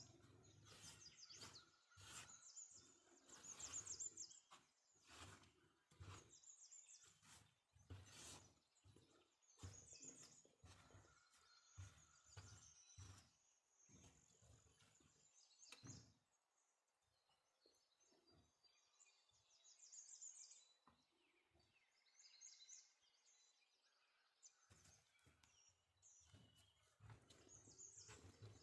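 Faint, irregular scraping and tapping of a spatula stirring flour and liquid into dough in a wooden bowl, with a lull about two-thirds of the way through and faint high chirps behind it.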